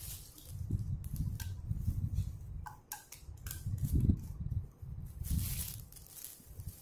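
Light clicks and taps of small plastic toy pieces being handled, several in quick succession in the first half, over low muffled thumps and rumble from movement on a bed.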